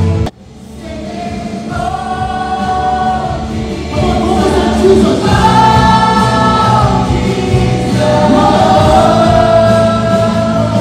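Worship music with a choir singing long held notes. The previous track cuts off just after the start, and this one fades in and builds over the next few seconds.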